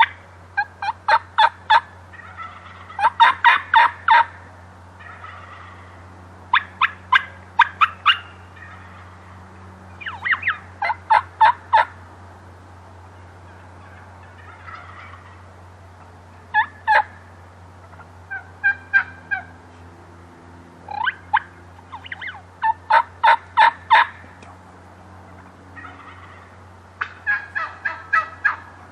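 Wild Merriam's turkey gobbling again and again, a rattling gobble every few seconds.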